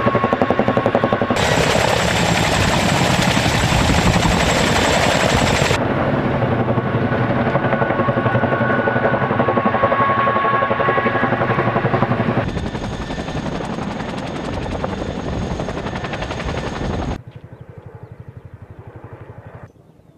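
Boeing CH-47 Chinook tandem-rotor helicopter, the rapid beat of its rotor blades with a steady turbine whine over it, in several cut-together clips. It is loud while hovering low, then fainter near the end as it flies at a distance.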